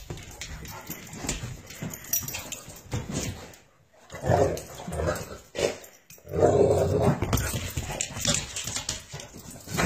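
Saint Bernard and German Shepherd puppy playing, with yips and whimpers. The sound is louder in two bursts about four and six and a half seconds in, each just after a short break.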